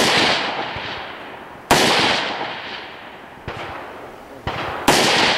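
Gunshots in slow, aimed fire: three loud shots, one right at the start, one about a second and a half later and one near the end, each trailing off in a long echo. Fainter cracks come between the last two.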